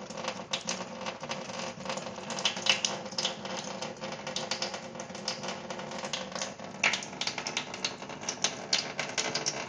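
Cat lapping at a thin stream of running tap water: quick, irregular wet clicks of the tongue over the steady trickle from the faucet.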